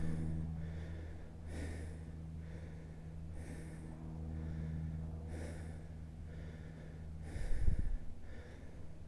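A hiker breathing hard after a steep uphill climb, with a hissy breath about every two seconds. A low thump comes about seven and a half seconds in.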